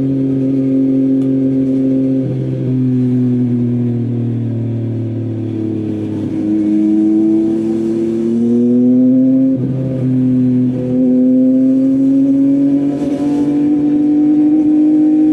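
Yamaha MT-09's inline-three engine through an Akrapovic full-system exhaust, heard from the riding bike: the note holds steady, falls away gently as the throttle eases, then climbs under acceleration, dips briefly about ten seconds in, and climbs again.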